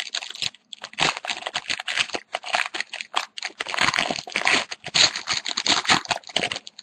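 Plastic wrapper of a hockey trading card pack being torn open and crinkled by hand, a dense run of irregular crackles.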